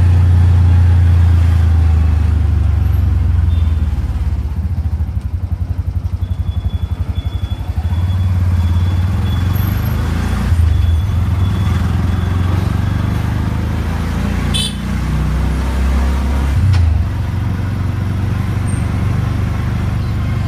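A CNG autorickshaw's single-cylinder engine running under way, heard from inside the passenger cabin as a steady low rumble. It drops for a few seconds to a slower, evenly pulsing beat and then picks up again. A single sharp clack comes about two-thirds of the way through.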